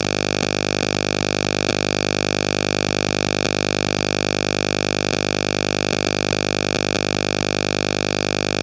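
A loud, steady electronic drone holding one unchanging pitch, rich in overtones, with no variation in level.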